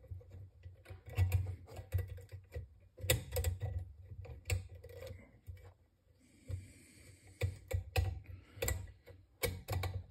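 Irregular metallic clicks and scrapes from hands working the recoil spring onto the gas tube of a Remington Model Four semi-automatic rifle, with low knocks from handling.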